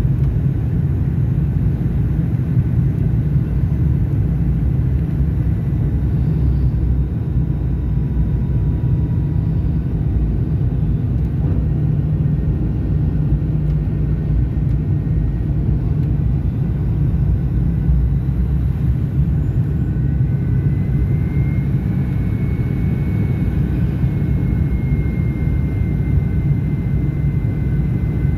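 Steady low roar of cabin noise inside a Fokker 100 jet airliner on its landing approach, from its Rolls-Royce Tay turbofans and the airflow over the fuselage. A faint high whine rises a little in pitch about two-thirds of the way through.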